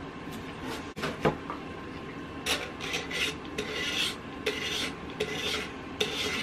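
Razor blade scraping along the painted edge of a wooden picture frame in quick repeated strokes, about two to three a second, chipping off the white paint to distress it; an awful sound. A couple of knocks come about a second in, before the strokes start.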